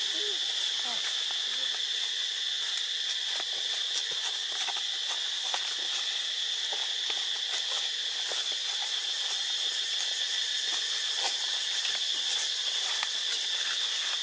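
Steady, high-pitched drone of an insect chorus, holding one constant pitch throughout, with faint scattered clicks over it.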